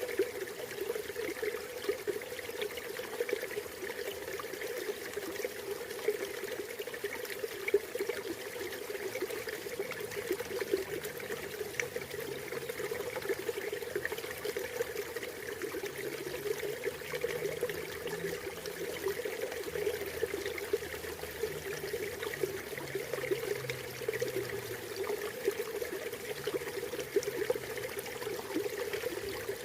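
River water flowing steadily, a continuous rush and trickle with small splashes.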